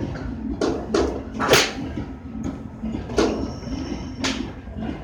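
Golf irons striking balls off driving-range mats: about five sharp cracks, the loudest about a second and a half in, over a steady low hum.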